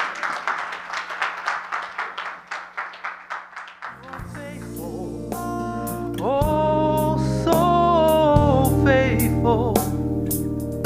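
People clapping, about three claps a second, for the first four seconds. Then a musical accompaniment with a deep bass starts, and about six seconds in a woman begins singing a gospel song into a microphone.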